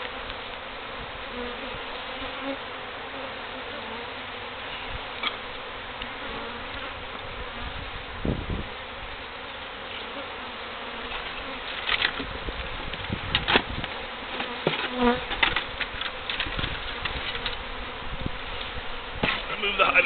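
Large numbers of honeybees from a feral colony disturbed by a hive cut-out, buzzing in a steady, dense drone. From about twelve seconds in, scattered sharp knocks and rustles from handling the bucket and the top bar hive sound over the buzzing.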